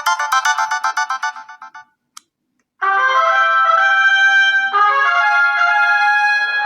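ASUS Zenfone Max M2 preset ringtones: one ringtone of fast repeating short notes fades out over the first two seconds, then after a brief gap with a faint click the next ringtone starts, a melody of held notes.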